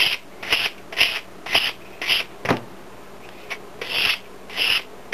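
320-grit sandpaper rubbing over German silver (nickel silver) pendant pieces in back-and-forth hand sanding strokes, about two strokes a second. There is a short pause about halfway, with a single knock.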